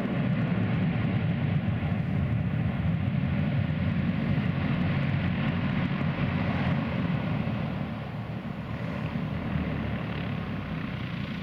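de Havilland Canada Buffalo's twin turboprop engines and propellers running at high power on the runway. The sound comes in suddenly at full strength and holds steady, easing off somewhat after about two-thirds of the way through.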